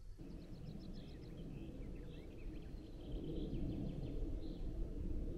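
Small birds singing in the open: a quick trill of repeated high notes in the first second, then scattered chirps and short phrases, over a steady low rushing noise.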